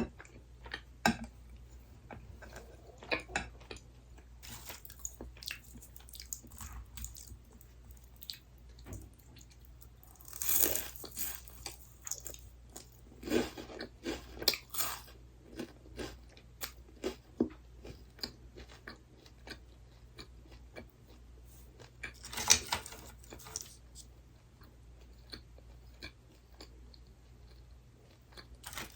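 A person chewing crunchy fried snacks close to the microphone: bites and crackling crunches, with a few louder bursts of crunching spread through.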